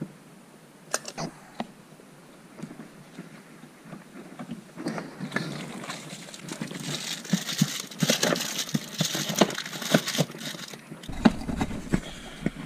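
Handling noise: a few sharp clicks, then a longer stretch of rustling and scraping peppered with small clicks, and a low rumble near the end.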